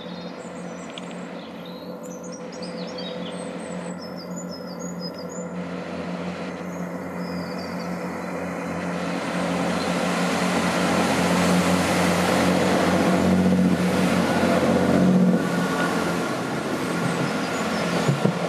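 A British Rail Class 165 diesel multiple unit pulling away and accelerating. Its engines grow steadily louder as it comes on, then the sound drops suddenly about three-quarters of the way through as it passes beneath. Birds chirp over the engine at first.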